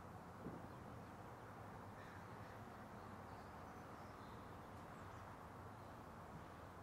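Near-silent outdoor background: a faint steady hiss and low hum, with a few faint, distant bird calls about two to five seconds in.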